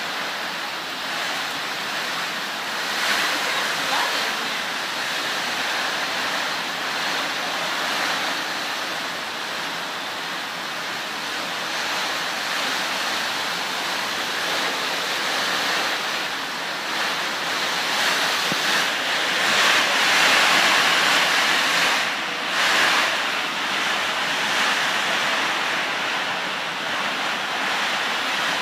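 Heavy downpour of rain, a steady rushing hiss that swells in gusts and is loudest about two-thirds of the way through.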